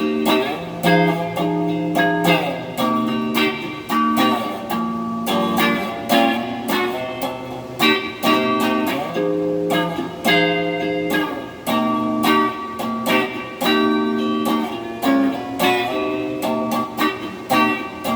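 Electric guitar played clean through an amp, with a single-coil and a humbucker pickup selected together and wired out of phase. Chords are picked about once a second and each is left ringing.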